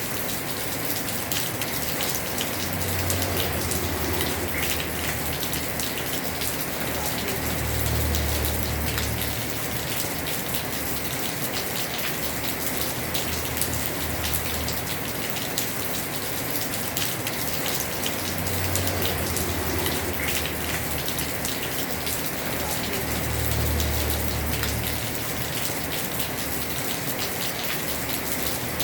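Heavy rain pattering steadily on a house roof, a dense hiss of countless drops. A low rumble swells and fades four times.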